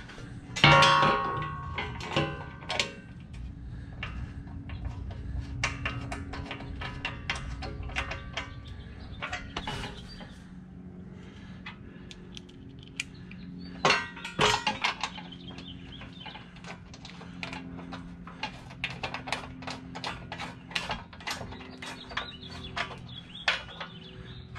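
Metal clanking and clicking as hand tools, bolts and the winch mount plate knock against the Jeep's frame while the inner frame bolts are taken out and the plate is loosely bolted up. Two louder ringing clanks stand out, one just after the start and one about halfway through.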